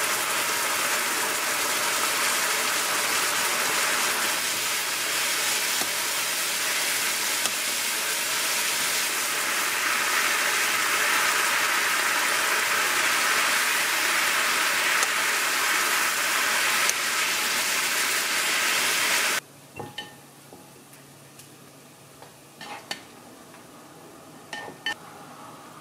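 Sliced meat and vegetables sizzling loudly in a hot frying pan while being stirred with a wooden spatula. The sizzle cuts off abruptly about three-quarters of the way through. A few light taps of a rice paddle against a ceramic bowl follow.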